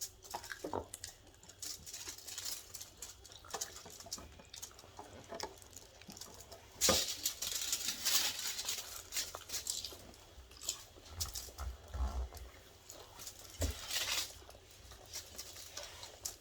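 Close-up mukbang eating sounds: chewing and lip smacking with many small clicks and crackles, louder for a stretch about seven seconds in and again near fourteen seconds.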